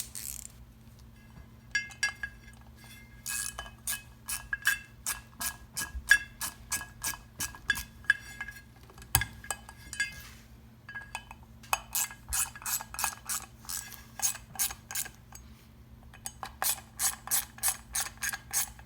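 Hand ratchet clicking in quick runs of about three clicks a second as it snugs down the small Torx screws holding the buttons in a driven clutch, in three runs with short pauses between.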